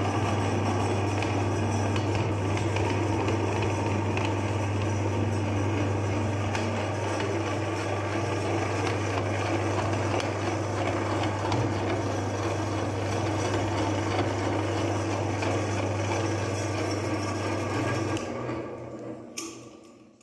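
Electric meat grinder running steadily with a motor hum, then switched off and running down near the end.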